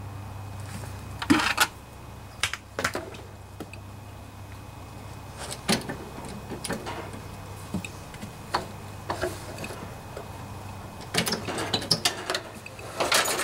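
Scattered metallic knocks and clinks as a Snapper riding mower's hydrostatic transaxle, rear wheels still mounted, is rocked and rolled out from under the mower frame. The clinks come thicker near the end, over a low steady hum that fades out about two-thirds of the way in.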